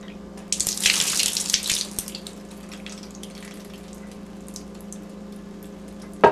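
Milk poured from a cup splashing onto a wooden tabletop for about a second and a half, then scattered drips, with a single sharp knock near the end. A steady hum runs underneath.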